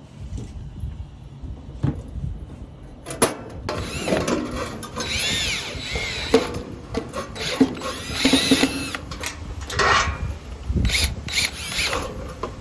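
Cordless power drill driving screws during grill assembly, its motor whine rising and falling in several short runs, with knocks and clatter of metal parts between them.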